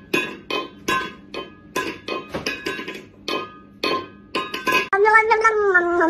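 A stainless steel pet food bowl clanging on a tile floor as a cat bats it with its paw: a string of sharp metallic clinks, about two to three a second, each ringing briefly. About five seconds in, this gives way to a cat's long meow that wavers and falls in pitch.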